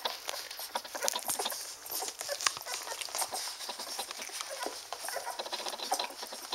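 Newborn standard poodle puppies suckling at their mother: a dense run of quick, wet smacking clicks, with small puppy squeaks and grunts among them.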